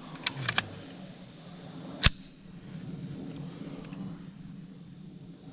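A single .22LR shot from an AR-15 running a CMMG rimfire conversion kit, sharp and loud about two seconds in, after a few light clicks. Insects are buzzing steadily, and the buzz falls away for a few seconds after the shot.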